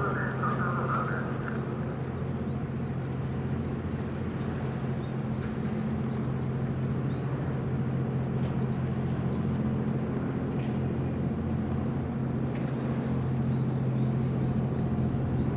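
Steady low hum of the helicopter destroyer JS Kaga's engines and machinery as the ship passes, with one constant deep drone tone.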